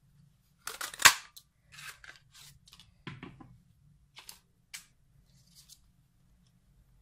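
Stampin' Up! label punch punching through cardstock, with one loud snap about a second in. Softer paper rustles follow as the punched label and the card are pulled free and handled.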